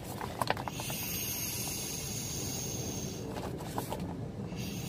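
Air hissing out of a Fego Float air seat cushion through its valve nozzle as the nozzle is pressed, deflating the seat. The hiss stops about three seconds in and starts again near the end.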